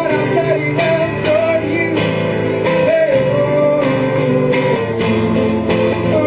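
A live band playing a song's instrumental passage, guitar to the fore, with a melody line that glides over steady chords.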